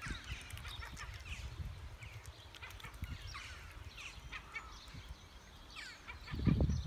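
Mute swan cygnets peeping: many short, high calls that slide downward in pitch, with a low rumble rising near the end.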